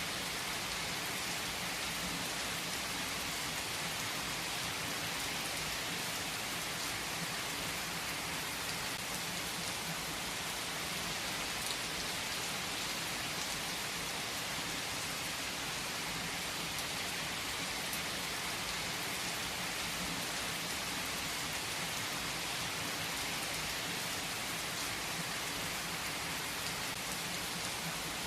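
Steady, even rain falling and pattering on surfaces, with no distinct thunderclap.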